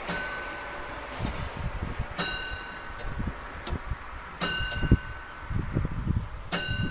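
Bell of the Šumava astronomical clock striking noon: single ringing strokes about two seconds apart, four in all, each ringing on briefly. Irregular low rumbling runs underneath.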